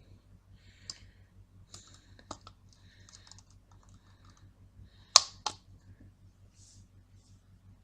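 Small metallic clicks and scrapes of a screwdriver working tiny screws into a hard drive's circuit board, with two sharper clicks close together about five seconds in.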